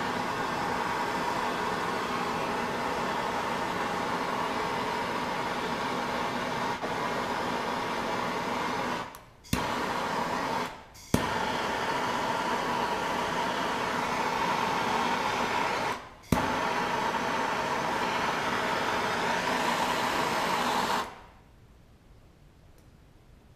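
Handheld gas blowtorch flame hissing steadily while heating a copper pipe joint for soldering. It cuts out briefly three times, each time coming back with a sharp click, and is shut off about 21 seconds in.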